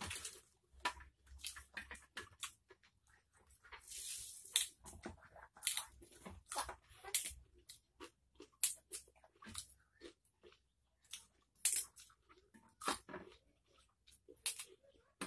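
Close-up crunching and chewing of raw vegetables, with green stalks snapped and torn apart by hand: short, sharp crunches at an irregular pace, about one a second.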